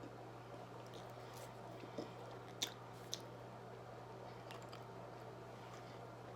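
Close-up mouth sounds of someone chewing pizza: soft, scattered wet clicks, with a few sharper ones about two to three seconds in, over a faint steady low hum.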